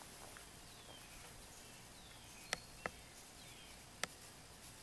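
Quiet garden ambience: a bird gives short falling whistles several times, and three sharp clicks sound, two in quick succession a little past halfway and one near the end.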